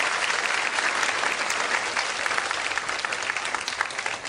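Large concert audience applauding, the clapping slowly dying down.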